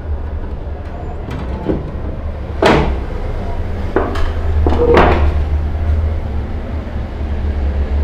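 Hands handling a microwave's plastic control panel and its wire connectors: a few sharp plastic knocks and clicks, the loudest about three and five seconds in, over a steady low rumble.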